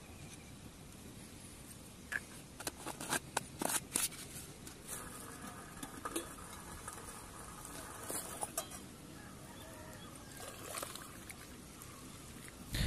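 A few scattered light clinks and scrapes of a metal spoon against a jar and a steel pot while coffee is made on a camping stove, over a faint steady background.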